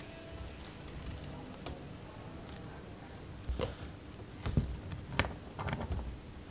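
Small clicks and taps of 3D-printed plastic suspension parts and a thin metal rod handled and fitted together close to the microphone, scattered at first and coming thicker and sharper from about halfway through.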